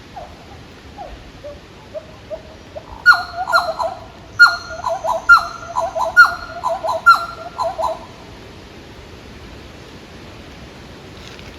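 A bird calling: a few soft falling notes, then from about three seconds in a rapid run of loud whistled notes, each sweeping sharply down in pitch, which stops about eight seconds in.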